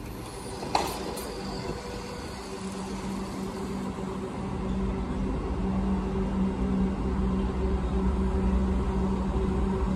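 Train approaching a station: a low rumble grows steadily louder over a steady hum, with a sharp click about a second in.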